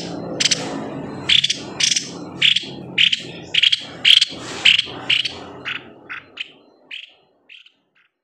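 White-necked babbler (tepus leher putih) calling: a run of about fifteen short, sharp, high notes, roughly two a second, fading away near the end. A low background rumble lies underneath until shortly before the calls stop.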